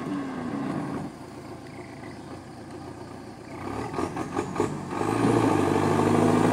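Belarus tractor's diesel engine labouring under load as it tows a loaded cassava truck through deep mud, growing louder about five seconds in. A few clattering knocks come just before the engine swells.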